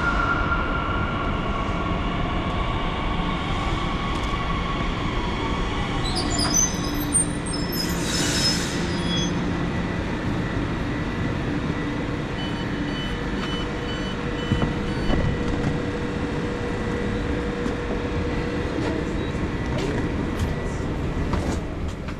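Deutsche Bahn regional train running on the rails: a steady rumble of wheels and running gear, with a faint tone falling in pitch over the first few seconds and a brief hiss about eight seconds in.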